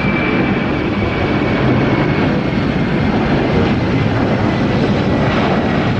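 Airplane engine sound effect: a steady rush of jet noise with a high whine that slowly falls in pitch.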